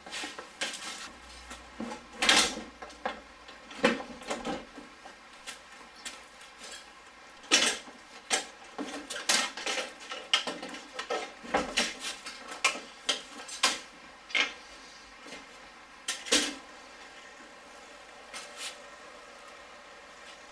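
Irregular knocks, clicks and rattles of hand work on a car's front end: plastic trim and metal being handled around the bumper, grille and headlight, the sharpest knocks about two seconds in and about seven and a half seconds in.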